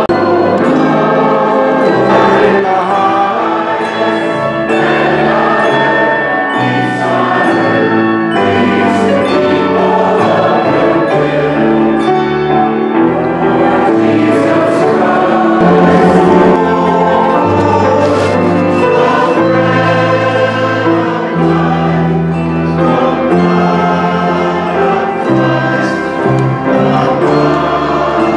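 Church choir singing a hymn with piano accompaniment.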